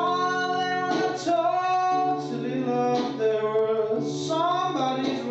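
A singer holding long, drawn-out notes over acoustic guitar accompaniment in a slow song.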